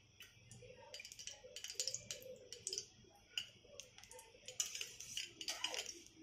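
Faint, irregular clicks and light taps of kitchen utensils on a kadhai, over a faint steady hiss.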